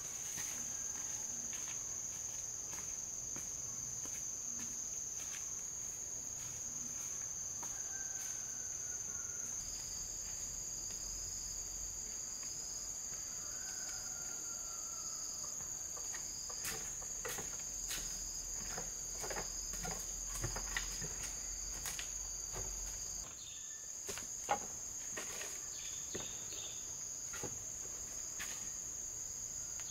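Steady high-pitched drone of rainforest insects, joined by a second, slightly lower insect tone about ten seconds in. Scattered footsteps and light knocks on a bamboo ladder and walkway sound through the middle part.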